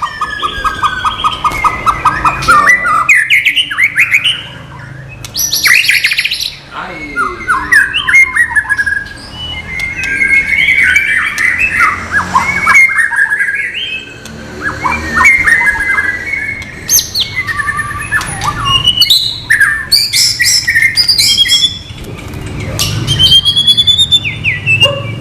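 White-rumped shama singing a long, continuous, varied song of loud whistled phrases, quick trills and sharp chips.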